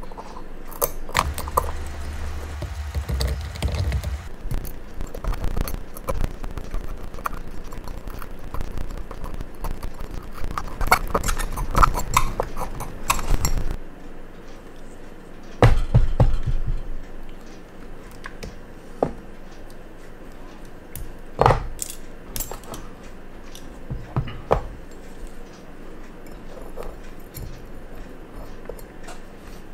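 Steel dental pick scraping and clicking against a steel watch case, chipping leftover glass shards and heat-softened glue out of the crystal seat. Dense scratching and ticking for roughly the first half, then scattered single clicks.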